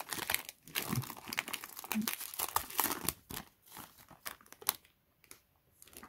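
Foil wrapper of a Yu-Gi-Oh! booster pack crinkling and tearing as it is handled and opened, a dense crackle of sharp clicks that dies down near the end.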